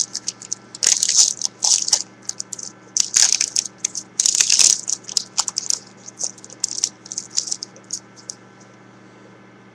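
Foil wrapper of a trading card pack being torn open and crinkled in the hands: a run of irregular crackles that thins out and stops near the end.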